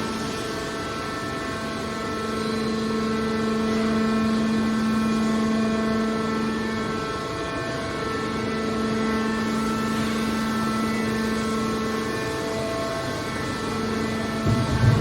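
Hydraulic power unit of a metal press baler running with a steady hum whose strength swells and eases slightly over time.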